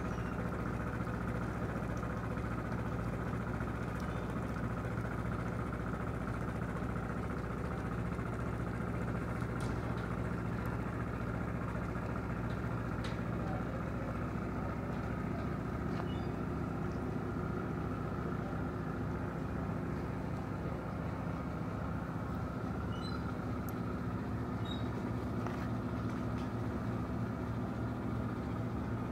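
An engine idling steadily, a low, even hum that does not change, with a few faint high chirps and ticks over it.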